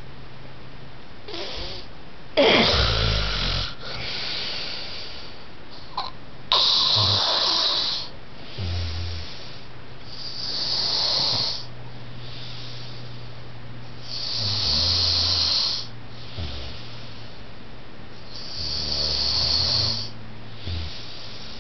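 A man snoring heavily in his sleep: five loud snores about four seconds apart, with softer breaths out between them, over a steady low hum.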